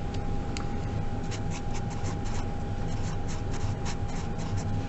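Red Sharpie marker writing on paper, a quick run of short scratchy pen strokes, over a steady faint hum.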